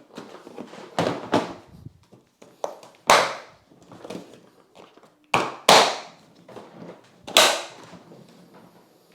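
DeWALT TSTAK plastic storage boxes being set onto a stack and locked together: about six sharp plastic knocks and snaps, the loudest four in the second half.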